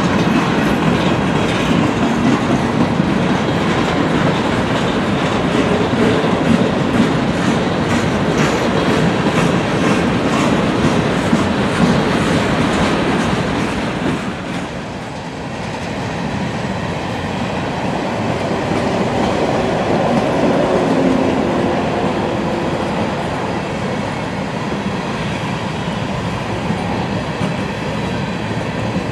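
Freight train cars rolling past close by: steel wheels clattering over the rail joints with a continuous rumble. The sound dips briefly about halfway through as the car types change.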